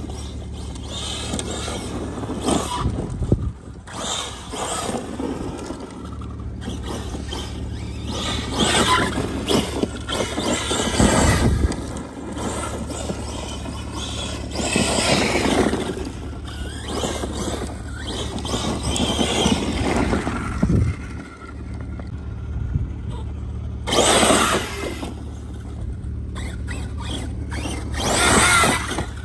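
Brushless electric motor of an Arrma Big Rock 6S RC monster truck whining in repeated bursts, its pitch rising and falling as the truck accelerates and slides, with the tyres spraying dirt. The loudest surges come near the middle and near the end.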